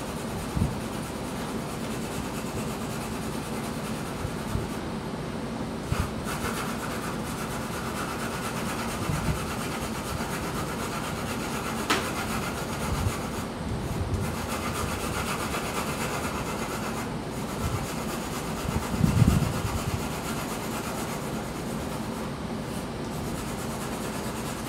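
2H graphite pencil rubbing and scratching across drawing paper in long shading strokes, with a few soft knocks and one sharp click against the drawing board.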